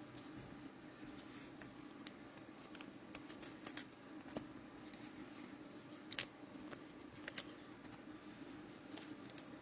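Trading cards and their cellophane pack wrapping handled: scattered small clicks and crinkles, sharpest about six seconds in, over a low steady hum.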